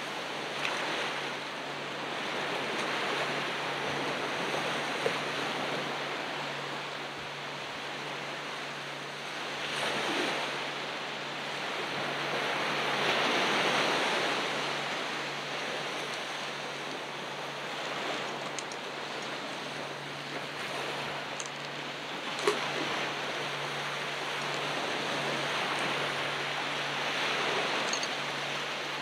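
Ocean surf on a beach: waves breaking and washing up the shore in slow swells every several seconds, with a steady hiss between them. Two brief sharp clicks stand out, one about five seconds in and one near the three-quarter mark.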